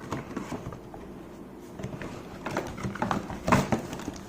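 A takeaway meal box being opened by hand: its packaging rustles and crackles with scattered clicks, getting busier in the second half, with one sharper snap near the end.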